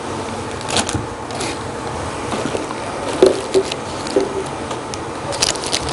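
Handling noise from unpacking camcorder accessories: scattered light clicks and rustles of plastic packaging over a steady hiss, with crinkling picking up near the end.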